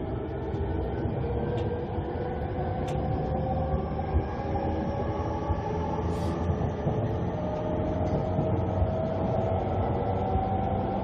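JR E231-500 series electric train's Mitsubishi IGBT-VVVF inverter and traction motors under way: several whining tones rise slowly in pitch as the train gathers speed, over a steady wheel-and-rail rumble.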